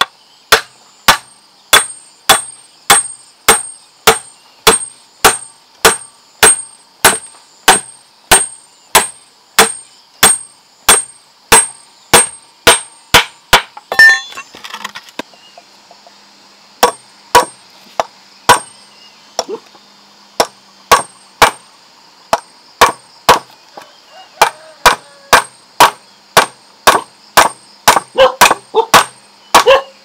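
Steel hammer driving nails into wooden boards: steady, evenly spaced blows about one and a half to two a second, each with a short metallic ring. The blows stop for a few seconds about halfway through, then resume and come faster near the end.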